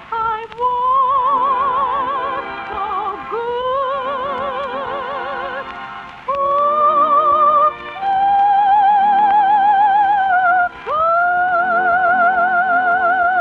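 Operatic soprano singing a wordless cadenza with orchestra: a run of long held high notes with wide vibrato, the last one swooping up about 11 seconds in and held, closing the operetta song.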